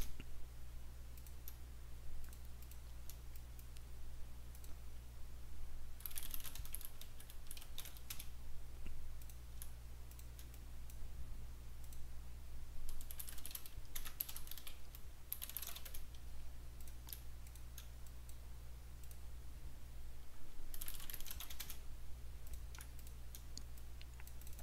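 Computer keyboard typing in four short bursts several seconds apart, over a steady low hum.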